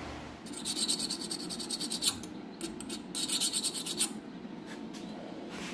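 Quick, evenly spaced hand-scraping strokes across a freshly quenched steel san mai cleaver blade clamped in a vise, in two bursts, followed by a few single strokes near the end.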